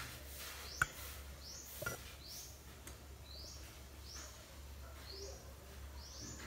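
Short, high chirps repeating about once a second, from a small chirping animal, over a steady low hum; two sharp clicks come about one and two seconds in.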